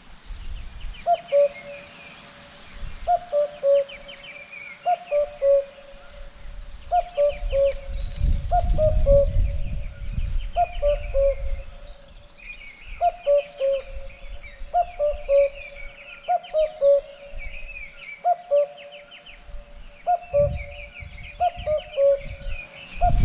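Common cuckoo calling its two-note "cuck-oo", a higher note falling to a lower one, repeated about every two seconds, a dozen times over. Smaller birds chirp faintly at a higher pitch, and a low rumble swells about a third of the way in and again near the end.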